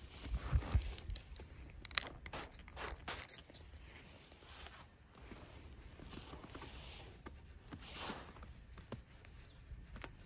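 Crinkling and crackling of a stiff paper towel handled in gloved hands, with a few low bumps on the microphone in the first second. The crackles are densest a couple of seconds in, then thin out.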